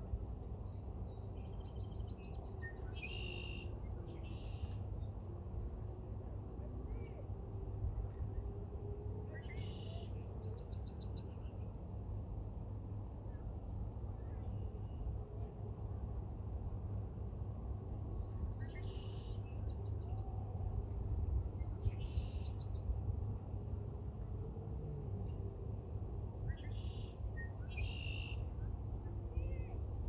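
Outdoor summer ambience: insects chirping in a steady, evenly pulsing high trill, with a bird calling briefly about five times. A low steady rumble runs underneath.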